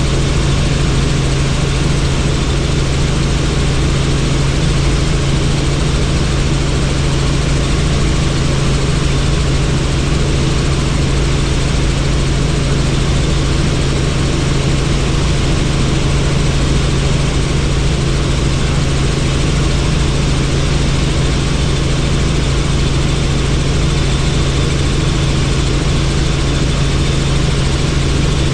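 Helicopter in flight heard from on board: steady rotor and engine noise, with a strong low hum under a rush of air. It stays even throughout.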